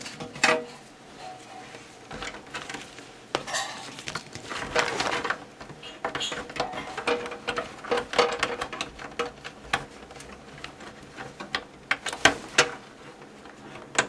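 Flat IDE ribbon cables being handled inside a PC case: rustling of the cables, with many short plastic clicks and knocks as a connector is worked onto its socket.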